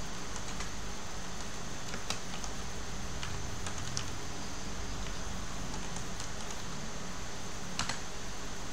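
Computer keyboard keystrokes, a few scattered taps with a close double click near the end, over a steady hiss and hum.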